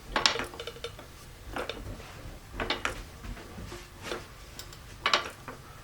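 Powerzone 380044 3-ton aluminium and steel hydraulic floor jack being pumped by its handle with no load: a short metallic clack and rattle with each stroke, about one stroke every second and a bit, as the saddle rises toward full height.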